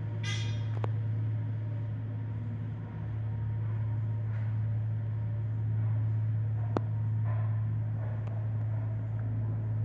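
ThyssenKrupp traction glass elevator car travelling downward, a steady low hum throughout the ride, with a single sharp click about two-thirds of the way through.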